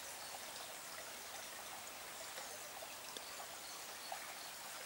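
A small stream running steadily, heard faintly as an even rush of water, with a couple of faint ticks near the end.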